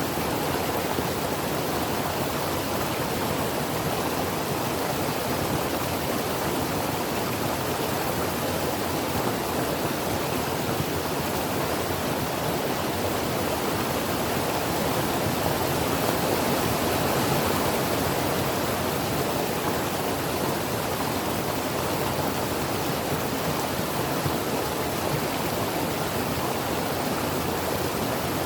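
Creek water flowing and burbling over rocks, a steady rushing hiss with no breaks.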